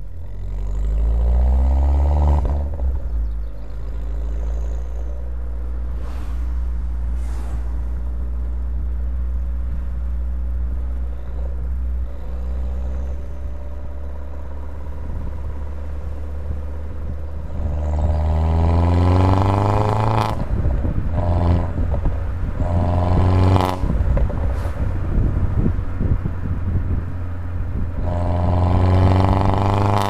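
Modified Mini Cooper R56 John Cooper Works turbocharged four-cylinder with an Akrapovic downpipe, heard from inside the cabin while driving. It climbs in pitch under acceleration at the start, then drones low and steady while cruising. From about the middle it pulls hard up through the gears, the pitch rising and dropping back at each shift several times, with another climb near the end.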